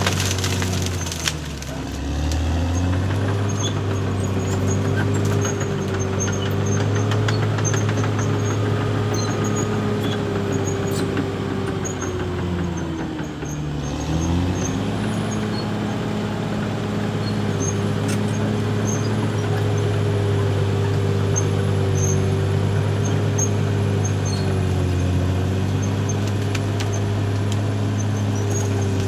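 Caterpillar D6R XL bulldozer's diesel engine running steadily, its pitch dipping and recovering twice: about two seconds in and again around thirteen seconds in.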